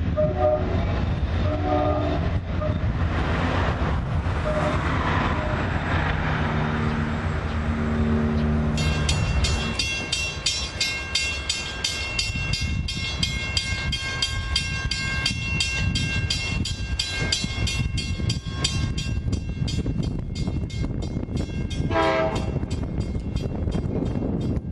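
An Amtrak train led by a P42DC diesel locomotive rumbles past while its horn sounds, and the horn chord drops in pitch as the engine goes by. After a cut, a grade-crossing bell rings rapidly and steadily, and a short horn-like note sounds near the end.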